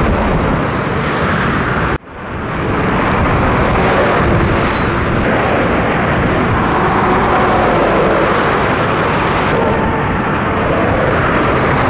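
Heavy motorway traffic: Scania trucks and cars passing close, with steady tyre roar and diesel engine drone. The sound drops out abruptly about two seconds in and swells back within a second.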